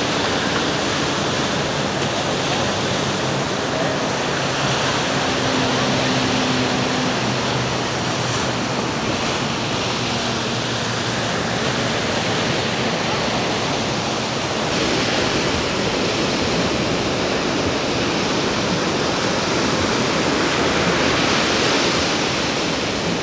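Ocean surf breaking and washing up on a sandy beach: a steady rushing roar of waves.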